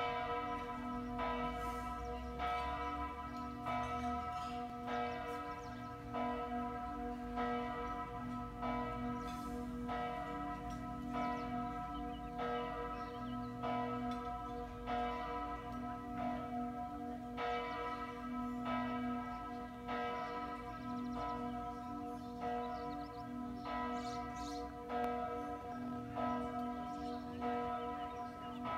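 Several church bells swinging and pealing continuously, their strikes overlapping and renewing a steady ringing hum.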